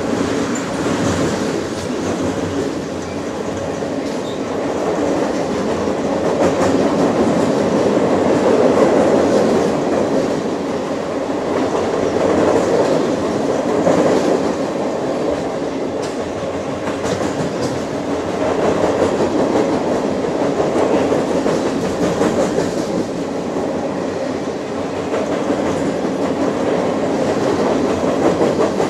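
Freight train cars rolling across a railway bridge overhead, heard from beneath the deck. It is a steady loud rumble and rattle of wheels on rail that swells and eases every few seconds, with clicks as the wheels pass over the rail joints.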